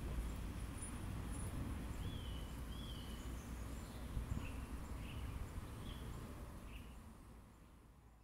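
Outdoor park ambience: small birds chirping a few times over a low steady background rumble, all fading out near the end.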